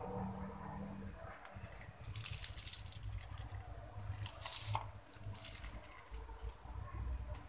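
Plastic piping bag of cake batter crinkling and rustling as it is handled and squeezed, in two spells of rustling over a low steady hum.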